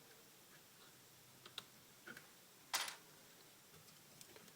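Small metal pistol parts being handled: a few faint clicks, then one brief louder clatter about three seconds in, as the spring-loaded slide stop is worked free of the FNP40's frame.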